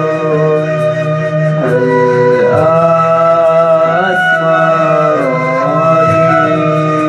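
Instrumental passage of an Arabic folk song: a reedy, wind-like melody that holds notes and slides between them over a steady low drone.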